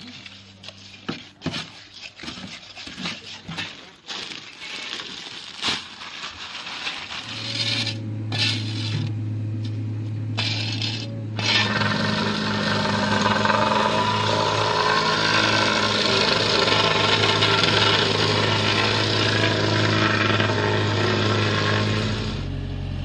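Scattered clicks and knocks, then a machine starts about seven seconds in and runs steadily with a low hum, a loud hiss joining it a few seconds later.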